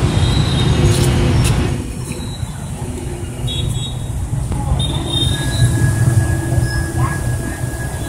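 Sutphen aerial ladder fire truck's diesel engine running at idle, a steady low rumble. A thin, steady high whine joins it about five seconds in.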